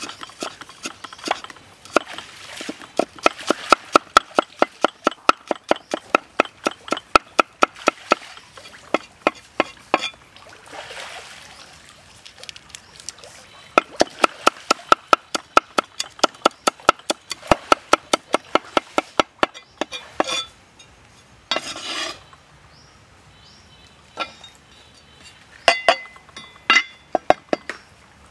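Steel cleaver chopping chilies on a round wooden chopping block, fast even strokes of about three to four a second with a slight metallic ring, in two long runs with a short pause between. A few scattered knocks and a brief rustle near the end.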